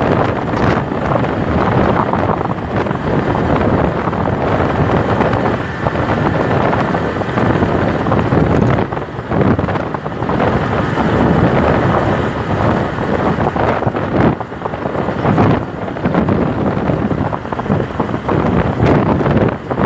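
Loud, gusting wind noise on the microphone of a moving motorcycle, with the motorcycle's engine running underneath.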